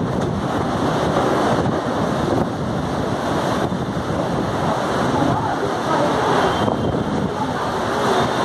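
Heavy rain pouring in strong, gusting wind, with the wind buffeting the microphone.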